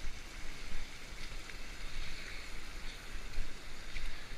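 Rushing river water, a steady hiss with a low rumble underneath.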